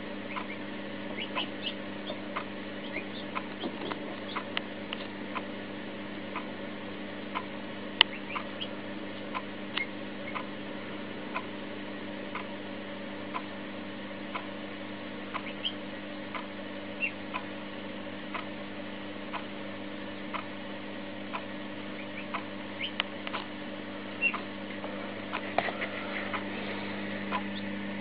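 Marans chick hatching: irregular sharp tapping clicks of its beak pecking at the eggshell, about once or twice a second with one louder knock, and a few short high peeps, over a steady low hum.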